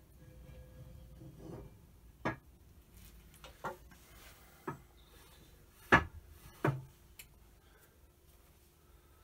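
Heavy metal lathe parts being handled and set down on the lathe bed: five separate sharp knocks, the loudest about six seconds in, with some light rubbing of metal on metal near the start.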